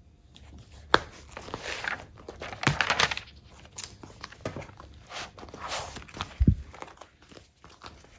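Paper planner pages being handled and turned, rustling, with a few sharp clicks and a dull low knock about six and a half seconds in.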